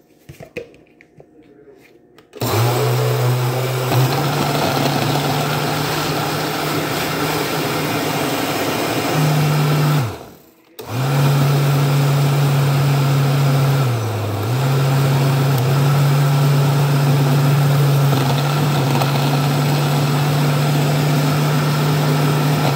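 Countertop blender running on a fruit smoothie. It starts about two seconds in, stops for less than a second near the middle, then starts again and keeps going, its motor hum stepping a little up and down in pitch.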